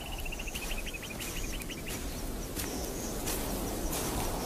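Outdoor grassland ambience with a steady low rumble. For about the first two seconds a small bird chirps rapidly, about eight short high notes a second, and a few faint clicks are scattered through.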